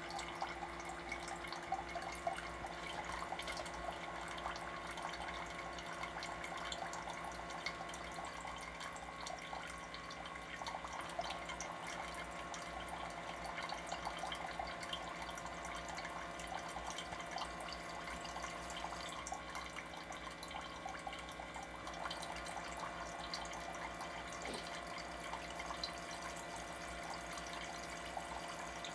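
Orenda coffee maker flushing water: water trickling and dripping through the machine over a steady pump hum. The pump into the brew chamber cuts in and out so that the chamber does not overflow.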